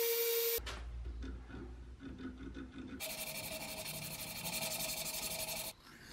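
An electric detail sander running with a steady whine on a wooden axe handle, cutting off about half a second in. After some low handling noise, a strip of sandpaper is pulled rapidly back and forth around the wooden handle, giving a continuous dry rasping for almost three seconds that stops shortly before the end.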